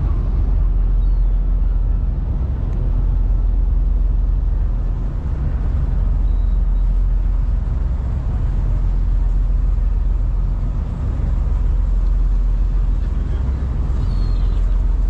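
A steady low rumble, with a couple of faint high chirps near the end.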